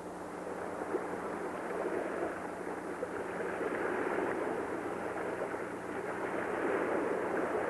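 A steady rushing noise that swells louder over the first few seconds and then holds.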